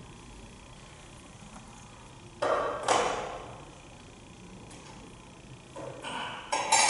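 Gilded metal Mass vessels (chalice and paten) knocking and clinking against each other and the wooden altar as they are purified and put away after communion. There are two sharp knocks about half a second apart a little before the middle, then a quick cluster of clinks near the end.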